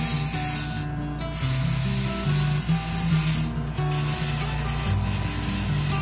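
Airbrush spraying paint with a steady, hissing rush of air, broken by two short pauses. Background music plays underneath.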